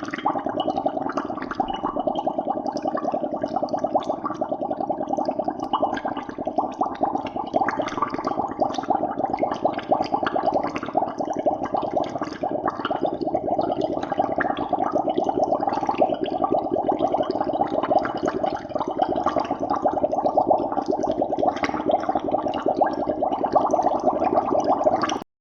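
Water bubbling in a dense, continuous stream of many small, rapid bubbles, steady throughout and cutting off abruptly at the very end.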